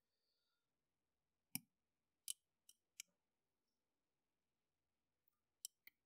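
Near silence broken by about six small, sharp clicks, the loudest about a second and a half in and two close together near the end: steel picking tools tapping and catching inside a DÉNY warded trapdoor lock held in a vise.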